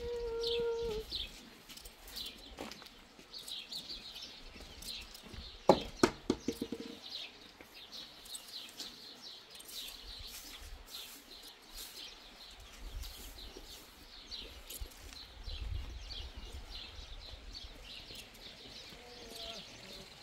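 Small birds chirping repeatedly, with a quick run of sharp knocks about six seconds in that stands out as the loudest sound, and a short pitched call at the start.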